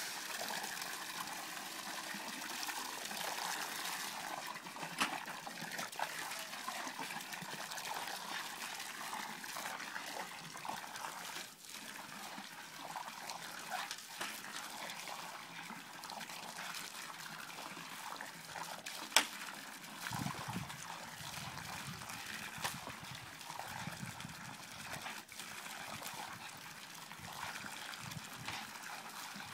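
Garden hose spray splashing steadily into a galvanized washtub of water and onto the grass, with one sharp click about two-thirds of the way through.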